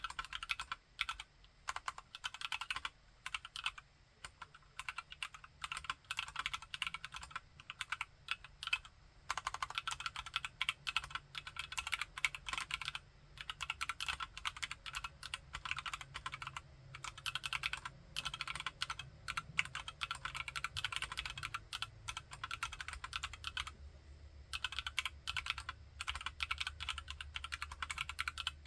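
Continuous typing on a TKC Candybar mechanical keyboard with Akko POM Brown tactile switches: a steady rapid patter of keystrokes, broken by a few brief pauses.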